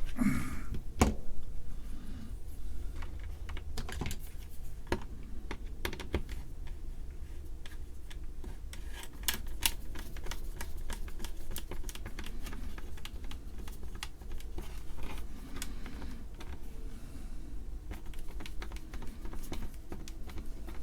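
Irregular small clicks, taps and rattles of fingers and a tool working inside an Atari 410 cassette recorder, fishing out a small part that has dropped into the mechanism. A steady low hum runs underneath.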